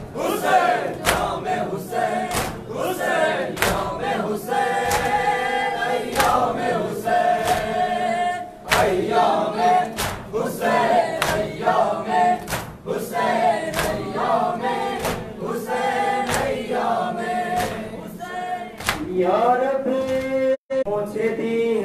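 Men chanting a nauha, a Shia Muharram lament, in chorus behind a lead reciter on a microphone, with rhythmic chest-beating (matam) striking about twice a second. The sound cuts out for a moment near the end.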